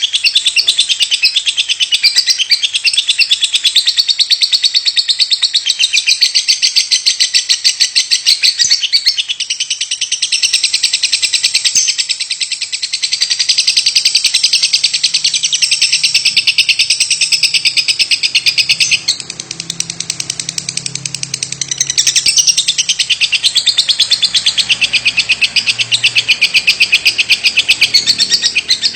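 Lovebird singing a long, unbroken, rapid chattering trill, with a brief dip about two-thirds of the way through before it picks up again.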